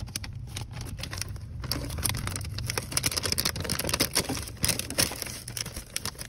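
Clear plastic packaging bag crinkling and rustling as it is handled and pulled open by hand: a dense, irregular crackle.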